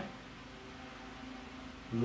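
Room tone: a faint, steady hiss with a low hum and no distinct events.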